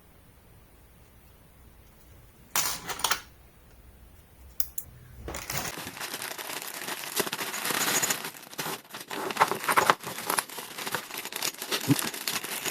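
Packaging being unwrapped and handled: a brief crinkle about two and a half seconds in, a couple of clicks, then from about five seconds in continuous crinkling, rustling and tearing with many small clicks.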